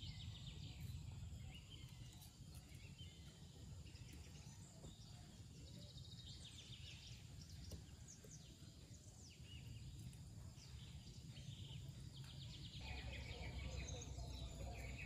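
Faint rural outdoor ambience: scattered bird chirps and rapid insect trills over a low rumble of wind, growing slightly louder near the end.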